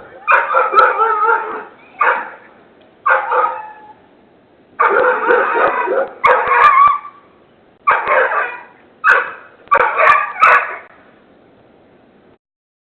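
Dogs barking in about nine loud bouts, several of them drawn out over a second, picked up by a Ring security camera's microphone; the barking stops about two seconds before the end.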